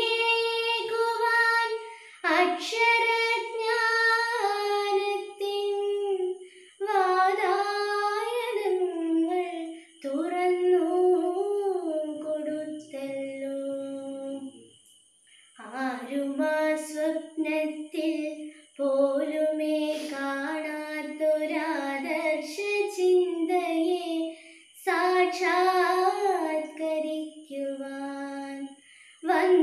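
A woman's voice singing a Malayalam poem slowly and unaccompanied, in long drawn-out, gliding phrases with short breaks between them, the longest break about halfway through.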